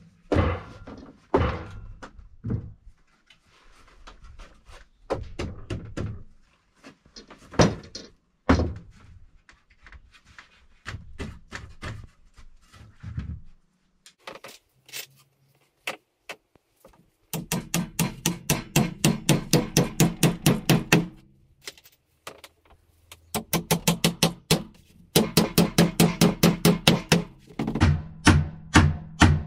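Wooden knocks and thunks as round log legs are fitted under a plank table top. About halfway through, long runs of fast, even strokes begin, about five a second, as the table top is worked by hand.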